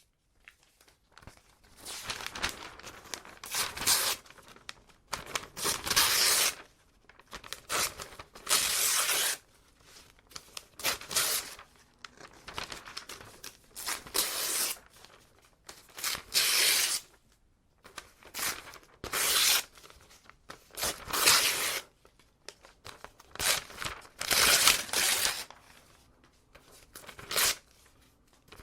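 Paper being torn by hand, a long series of separate rips, some short and some drawn out for about a second, with brief pauses and some crinkling between them.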